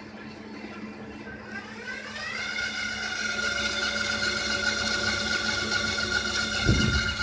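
Electric feed motor of a Sir Meccanica WS2 portable line-boring machine running up to speed: a whine that rises in pitch about two seconds in, then holds steady, over a constant low hum. A low thump near the end.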